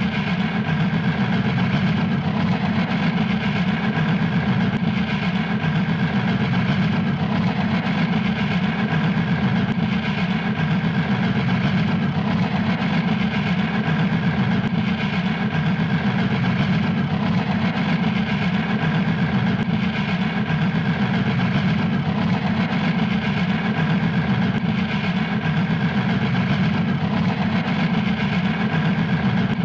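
Steam locomotive puffing fast and steady.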